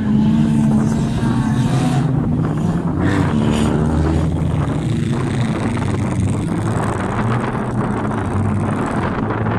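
Engines of several Mazda wreck-race cars running and revving as they race round a dirt track, their pitch rising and falling.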